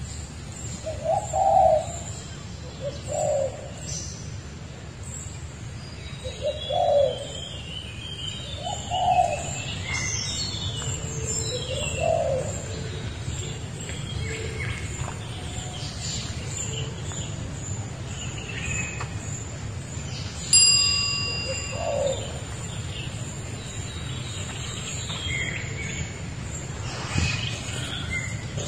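Forest birdsong: low hooting calls repeat every few seconds beneath scattered higher chirps. About two-thirds of the way through, a single sharp ringing ding is the loudest sound.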